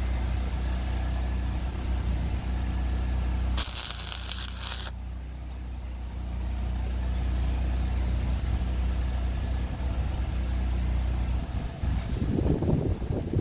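An engine running steadily with a low hum, and about four seconds in a stick-welding arc crackles and hisses for just over a second as a tack weld is struck. Near the end, wind buffets the microphone.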